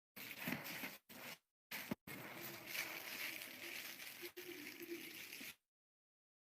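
Close-up eating and food-handling noises: crackling, tearing and crumpling sounds that cut in and out abruptly in several stretches, the longest running about three seconds, ending about a second before the end.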